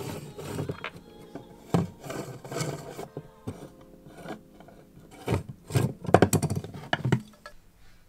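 Hex key turning the chainring bolts of a Sugino 75 aluminium crankset: irregular metallic clicks, scrapes and rattles of tool and bolts against the chainring, busiest about six to seven seconds in, then quieter.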